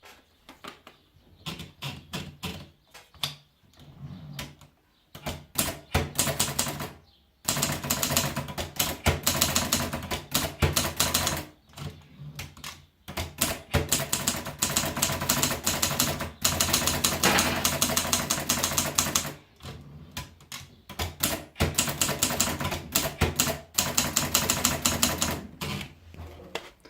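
Adler Tippa portable manual typewriter being typed on. It starts with scattered single key strikes, then about seven seconds in moves to fast runs of keystrokes a few seconds long, with short pauses between them.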